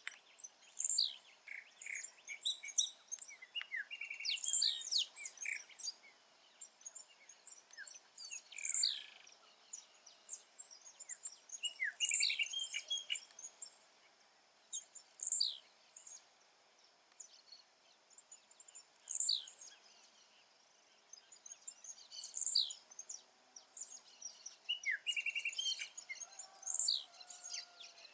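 Blue-black grassquit (tiziu) repeating its short, high song about every three and a half seconds, with scattered softer chirps between phrases and a faint steady high hum behind.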